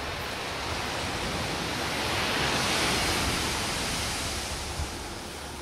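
Surf breaking on a beach: a steady wash of waves that swells to a peak about halfway through and then ebbs away.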